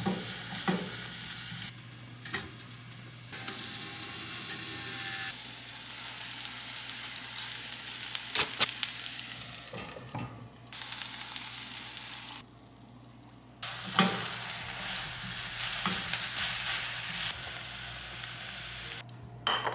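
Vegetables sizzling in a white ceramic frying pan while a plastic spatula stirs and scrapes the pan, with a few sharp knocks. The sizzle changes abruptly at several cuts and drops quieter for about a second past the middle.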